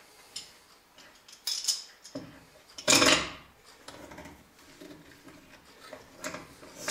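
Steel F-clamps being fitted and tightened on a woodworking glue-up: scattered metal clinks and knocks, with one louder scraping clatter about three seconds in.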